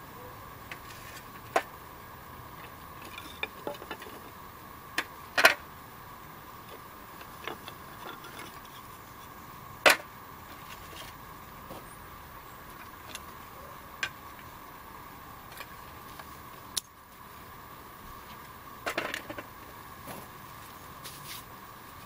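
Dry split wooden kindling sticks clacking together as they are handled and laid onto a small fire: a handful of sharp, separate knocks, the loudest about five and ten seconds in, with a quick flurry of them near the end.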